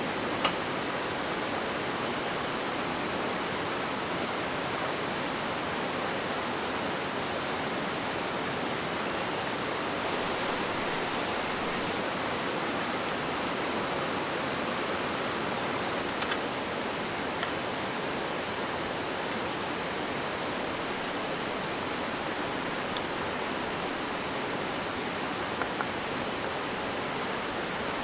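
Mountain stream rushing steadily, swollen and running strong with rainy-season water. A few brief clicks sound over it.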